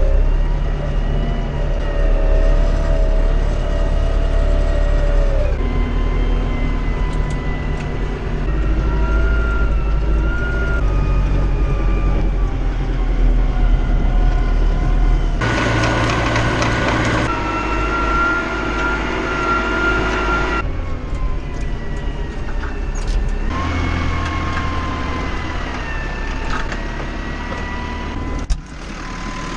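Farm tractor engine running steadily in the field, with a deep rumble and a whine; the sound changes abruptly several times as one stretch of running gives way to another.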